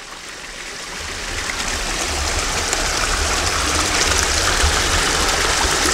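Rain-fed water pouring in a thin laminar sheet over the lip of a small timber weir and splashing into the pool below. It grows louder over the first two seconds, then runs on steadily.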